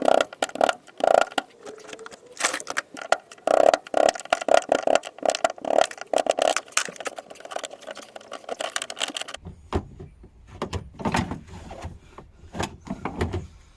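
Hand tools working on a car's fuel pump fittings: a busy run of clicks, knocks, rattles and scrapes of metal on metal and plastic. About nine and a half seconds in the sound cuts to fewer, heavier knocks over a low hum.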